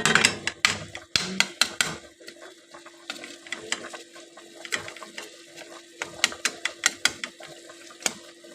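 A cooking utensil knocking and scraping against a pan in quick, irregular clicks as the mince is stirred, over a faint steady hum.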